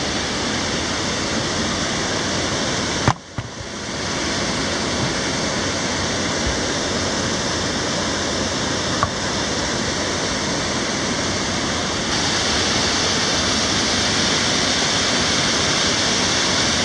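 River water cascading over small falls and rushing through a narrow rock gorge, a steady loud roar. It is broken by a brief click and dip about three seconds in.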